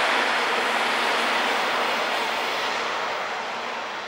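Diesel train of JR Shikoku KiHa 185 series railcars with the Seto-Ohashi Anpanman Torokko car running past, a loud even rolling noise that fades away over the last couple of seconds as the end of the train moves off.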